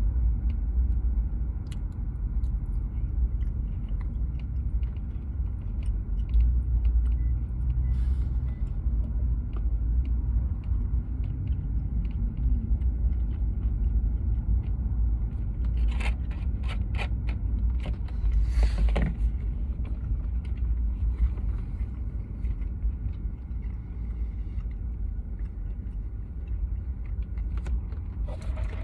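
Steady low rumble inside a closed car cabin, as of the engine idling with the climate fan running. A few sharp clicks and a brief scrape come just past the middle.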